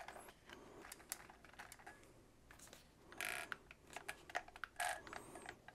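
DJI FPV Remote Controller 2's control sticks being pushed through their full throw by hand: faint plastic clicks and taps, with two short rasping bursts about three and five seconds in.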